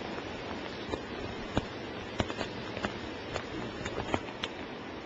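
Steady rushing water noise, broken by scattered sharp ticks a few times a second.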